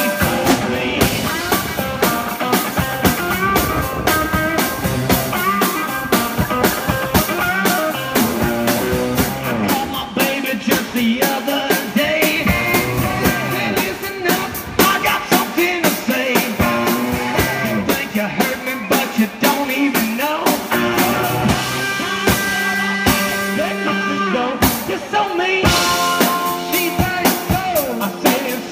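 Live rock band playing: guitar and drum kit, with singing.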